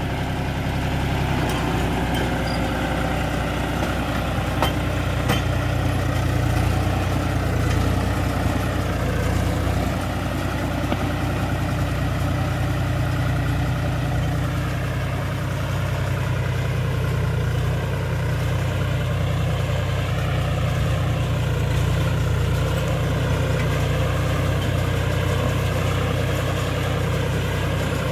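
John Deere 5105 tractor's three-cylinder diesel engine running steadily under load as it pulls a mouldboard plough through the soil.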